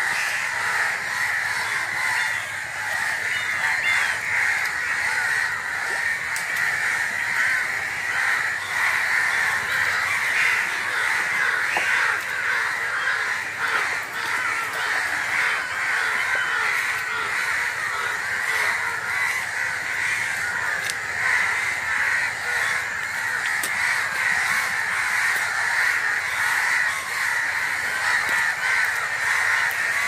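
Din of a large flock of birds calling over one another, a dense, unbroken chatter that holds steady throughout.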